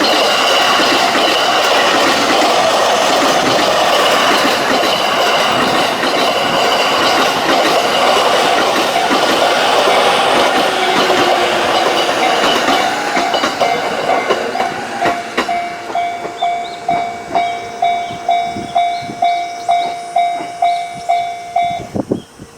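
A JR Narita Line train passes over a Japanese level crossing while the crossing's electronic warning bell rings. As the train's noise fades, the bell is heard on its own, ringing about twice a second. It stops shortly before the end, as the crossing clears.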